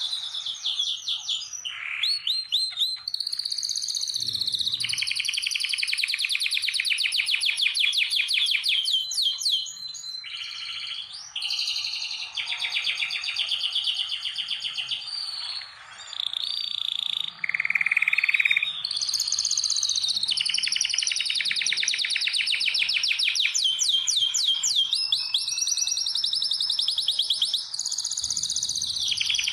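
Domestic canaries singing: near-continuous song made of long, fast trills and rolls that change pitch from phrase to phrase, with a couple of brief dips.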